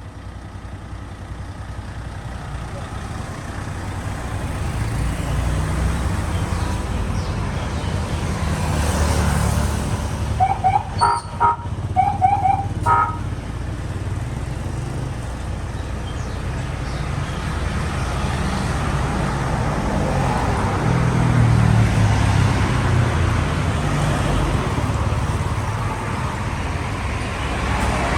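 A motor vehicle running on the road, its engine and road rumble steady and slowly growing louder, with a quick run of short horn toots about a third of the way through.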